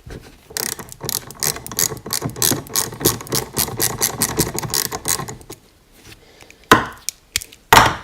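A 10 mm socket ratchet clicking rapidly as it unscrews the drain plug from a BMW R80 fork leg, then two sharp knocks near the end.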